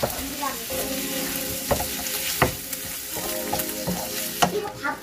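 Pork sizzling steadily in a frying pan as it is stir-fried with chili paste, with a few sharp knocks and scrapes of the spatula against the pan.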